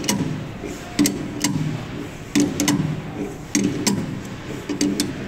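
Large adjustable wrench clanking against the hex nut and metal blade holder on the sharpening machine's spindle as the nut is turned, stroke by stroke. Sharp metallic clinks come singly or in quick pairs about once a second, each with a brief low ring.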